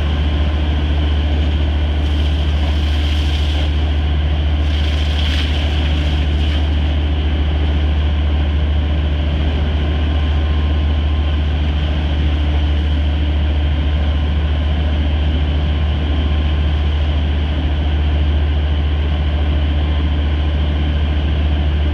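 Fishing vessel's engine running steadily, a loud, unchanging low drone, with a couple of short hissing noises in the first several seconds.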